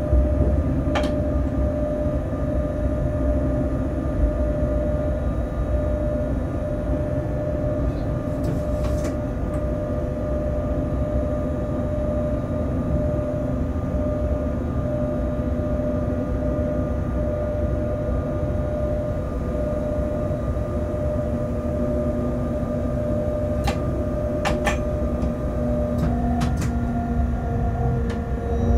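Inside a freight locomotive's cab while the train runs along the track: a steady running rumble with several steady hum tones over it. A few short sharp clicks come through, and near the end the hum shifts slightly higher in pitch.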